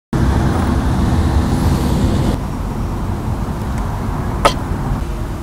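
Steady low outdoor rumble of the kind road traffic makes, with one sharp click about four and a half seconds in.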